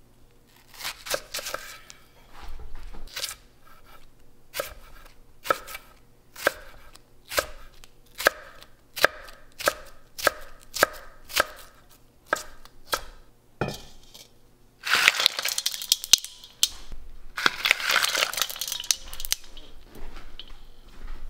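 Chef's knife slicing a Korean green onion (dae-pa) into thin strips on a wooden cutting board: a sharp tap of the blade on the board about once a second. Near the end come two longer stretches of quicker, noisier cutting and rustling.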